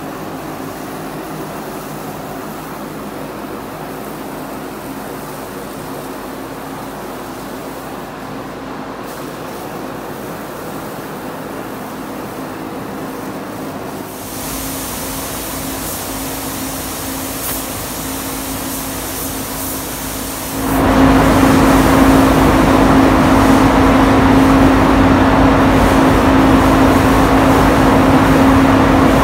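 Paint booth ventilation running: a steady hum with a rush of air. It grows a little louder about halfway, then steps up sharply and stays much louder from about two-thirds in.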